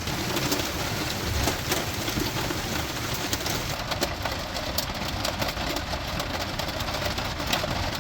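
Hailstones pattering and clicking on the camper van's metal body and windshield, heard from inside the van: a steady dense haze with many sharp, irregular ticks.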